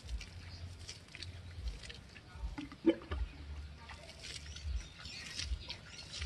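Water poured from a hand scoop, splashing and pattering onto dry straw mulch, scoop after scoop from a plastic bucket. A short sharp knock about three seconds in is the loudest sound.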